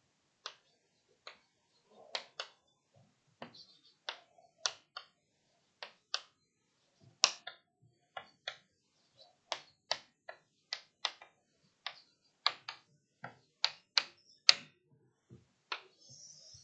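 Chalk tapping and clicking against a blackboard as words are handwritten, an uneven series of short sharp taps, about two a second.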